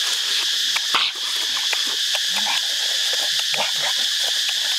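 Wet chewing and smacking of someone eating roasted chicken by hand: many short irregular clicks. Under it runs a steady high drone of insects.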